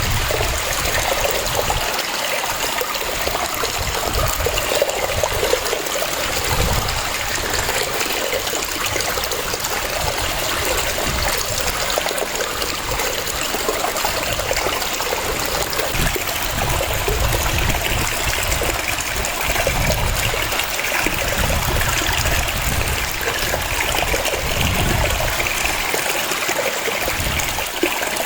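Waterfall: water rushing and splashing steadily.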